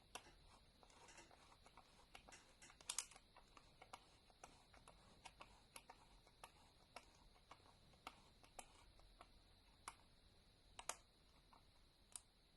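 Faint, irregular clicking from the film-advance knob of a Voigtlander Bessa 46 camera being turned to wind on the film, about one or two clicks a second, with louder clicks about three seconds in and again near the end.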